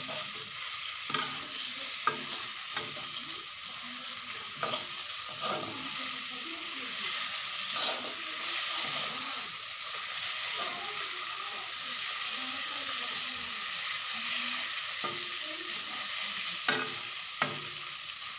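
Onions and boiled eggs sizzling in oil in a kadai while a metal slotted spatula stirs them, scraping and knocking against the pan. The sizzle is steady, with short sharp knocks now and then and two louder ones near the end.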